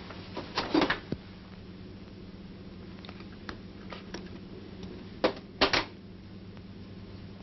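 Scattered sharp clicks and knocks: a quick cluster about a second in, a few faint single taps in the middle, and two louder knocks near the end, over a steady low hum.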